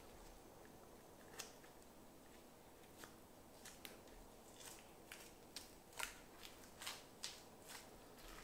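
Faint, sharp snicks of a boning knife cutting through sinew and membrane along the muscle seams of a venison hindquarter, about a dozen scattered strokes that come more often in the second half, over near-silent room tone.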